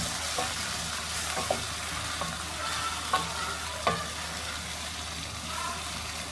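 Sliced onions and freshly added tomato wedges sizzling in hot oil in a nonstick pan while a spatula stirs them. The steady sizzle is broken by a few sharp knocks of the spatula against the pan.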